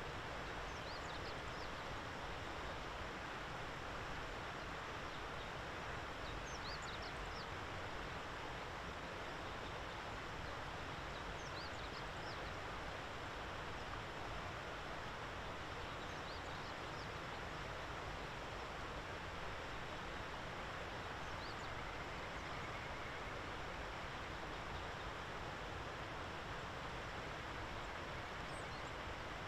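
Steady outdoor background hiss, with faint, short, high-pitched bird calls in small clusters every few seconds.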